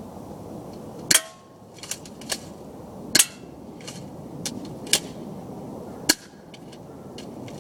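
Crosman Stinger S32P airsoft gun firing: three sharp shots a couple of seconds apart, the first with a brief ring, and fainter clicks between them.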